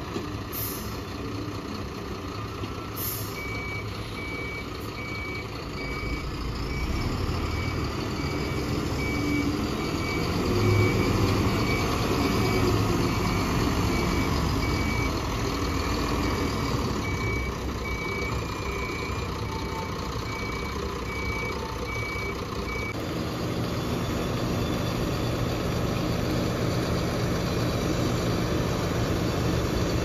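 Heavy diesel machinery running, with a reversing alarm beeping at an even pace that stops about three quarters of the way through. There are two short hisses near the start, and the engine grows louder about ten seconds in.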